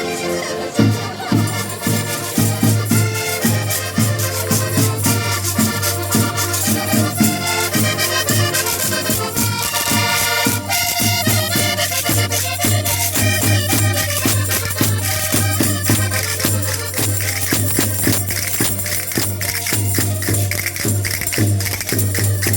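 Portuguese folk dance music played with a steady beat and jingling, shaken percussion over a sustained low drone.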